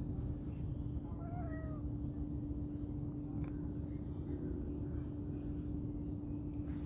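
Domestic cat giving a short meow about a second in, over a steady low hum.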